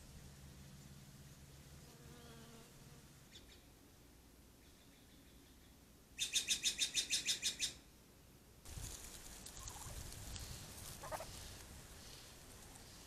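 A bird's rapid chattering call: about ten high chirps at roughly seven a second, lasting about a second and a half, then a steady rustling noise with a low rumble.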